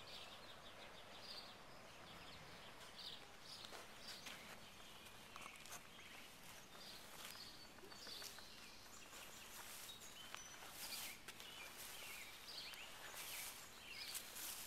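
Faint outdoor ambience: a low steady hiss with scattered short, high chirps and occasional soft clicks and rustles.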